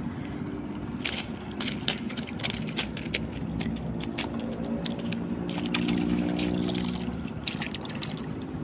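A mesh keep net holding giant freshwater prawns is handled at the water's edge: water splashing and dripping, with scattered sharp clicks. Under it runs a steady engine hum that swells a little around the middle.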